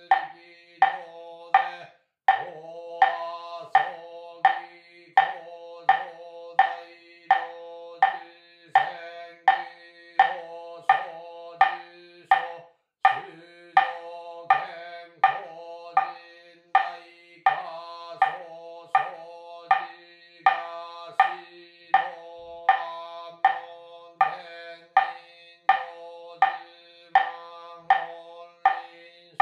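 Nichiren Buddhist sutra chanting: a steady, near-monotone voice over a percussion instrument struck evenly about twice a second. The chant breaks off for a breath twice.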